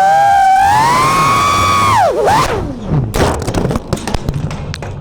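5-inch FPV quadcopter motors whining, the pitch rising over the first two seconds and then dropping sharply, followed by a rapid clatter of knocks and hits as the quad crashes.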